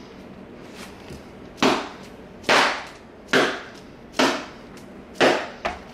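Five sharp strikes into the leather pocket of a new Wilson A2K baseball glove being broken in, just under a second apart, with a lighter hit right after the last.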